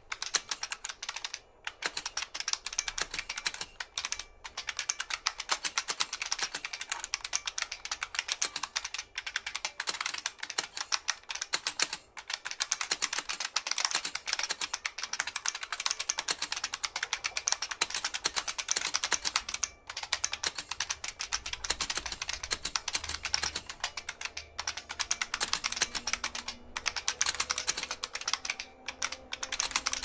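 Model F77 mechanical keyboard with buckling-spring keys being typed on: a fast, continuous stream of key clacks, broken by a few brief pauses.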